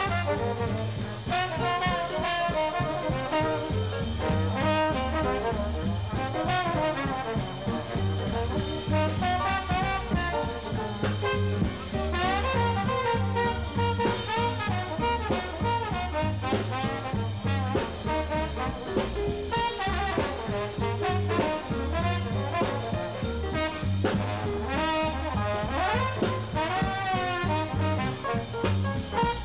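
Live swing jazz band playing, with a trombone solo carried by bass and rhythm section; the trombone slides up in pitch several times.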